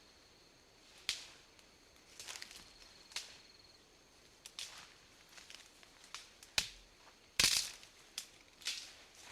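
Dense vegetation being broken and pushed through: a series of sharp snaps and cracks with short rustles between them. The loudest is a longer crashing rustle about seven and a half seconds in, and a last crack comes near the end.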